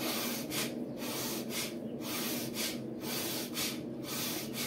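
A woman breathing forcefully in and out through the nose in a steady rhythm, about two sharp breaths a second, as a yoga breathing exercise.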